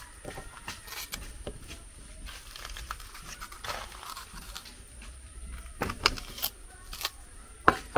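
Food-preparation handling sounds: scattered light clicks and rustling, with a few sharper knocks about six and seven and a half seconds in.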